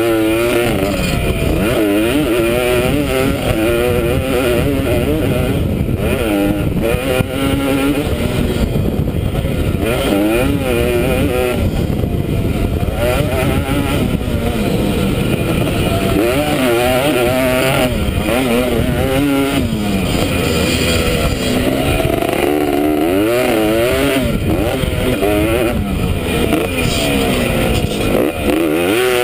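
Dirt bike engine revving hard and easing off again and again as it is ridden around a motocross track, the pitch climbing and dropping with each throttle change and gear shift. Heard from the rider's helmet.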